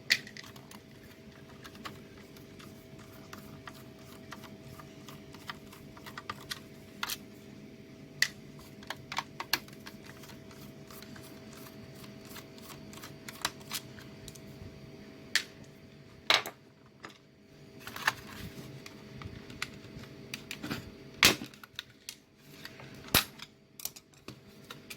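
Plastic case of a DSL modem being opened by hand: irregular small clicks and taps, with a few sharper snaps about 16 and 21 seconds in, over a faint steady hum.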